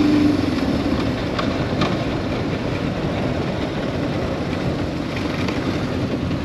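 Honda CB550K air-cooled inline-four, on Mikuni VM34 carburetors, coming off the throttle after a hard run. Its steady high-rev note drops away just after the start, and the engine settles back toward idle while the bike rolls on.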